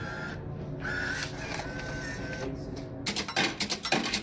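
Vending machine bill validator whirring as it draws in a dollar bill, then, about three seconds in, a loud rapid metallic clatter of coins paid out by the changer. This is the fault in which the machine accepts the $1 bill but kicks back four quarters instead of allowing a selection.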